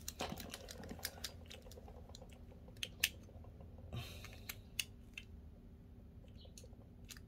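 Faint, irregular clicks and taps of hard plastic Beyblade parts being handled and twisted together, the loudest about three seconds in. The parts are being fitted to test how tightly they lock.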